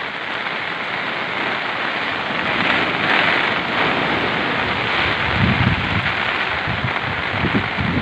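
Heavy storm rain hissing steadily. From a little past halfway, gusts of strong wind buffet the microphone in low rumbling bursts.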